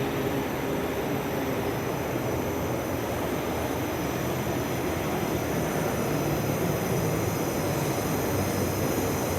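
Light rail train arriving at a station platform: a steady, even noise of wheels and traction motors with a faint low hum.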